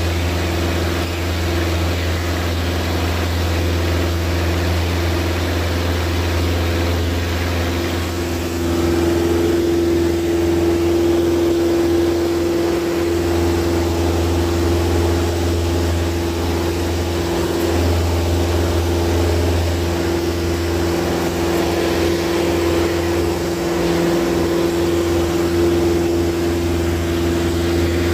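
RV-4 light aircraft's piston engine and propeller droning steadily in cruise flight, heard inside the cockpit: an even hum with a strong low tone and a higher tone over it, a little louder from about nine seconds in.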